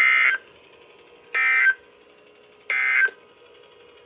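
NOAA Weather Radio SAME end-of-message data bursts: three short, loud, buzzy digital warbles, each about a third of a second long and about a second and a third apart. They mark the end of a warning broadcast.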